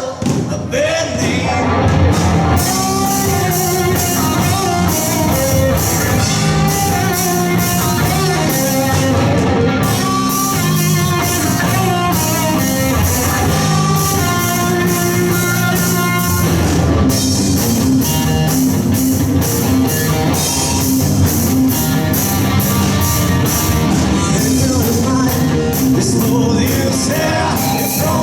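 Live rock band playing: drums, electric guitar and bass under a melody line, with singing.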